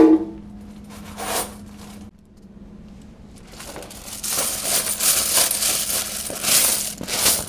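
A large load of quarters from a vending machine's coin box clattering and jingling together for about four seconds, then stopping suddenly. A knock comes at the start and a short clatter about a second in.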